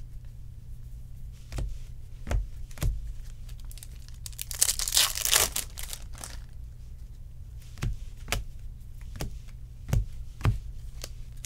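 Stacks of baseball trading cards being handled: the cards are squared up and tapped on the table in several short knocks, and a crinkly paper rustle runs for about a second around the middle.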